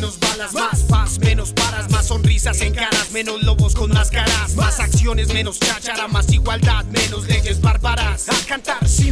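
Background hip hop track: rapped vocals over a deep bass and a steady kick-drum beat.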